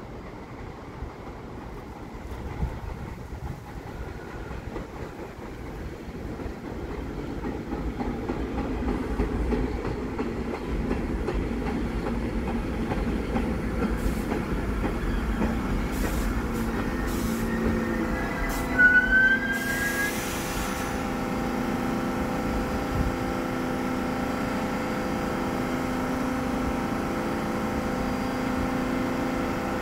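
A New York City subway train pulling into the station and stopping. Its rumble builds, wheels click over the rail joints and squeal briefly, and there is a short burst of air hiss about two-thirds of the way through. Then a steady hum as the train stands at the platform.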